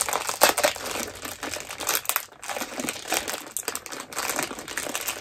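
Plastic snack packaging being crinkled and handled, an irregular run of crackles throughout.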